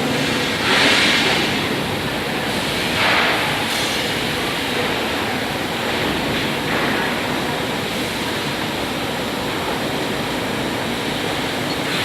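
Overhead travelling crane running along its rails: a steady rolling rumble and hiss, with two brief louder hissing swells, one about a second in and one about three seconds in.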